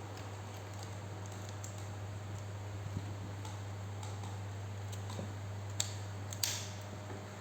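Scattered light clicks and ticks, with two sharper clicks near the end, over a steady low hum.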